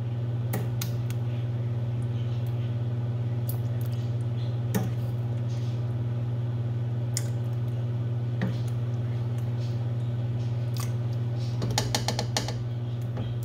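A ladle scooping thick Alfredo sauce and knocking against the rims of stainless steel pots: scattered light clinks, with a quick run of them near the end. Under it runs a steady low hum.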